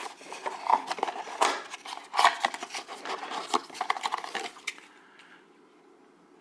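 Cardboard packaging being handled: irregular taps, scrapes and rustles of a box and its insert, stopping about four and a half seconds in.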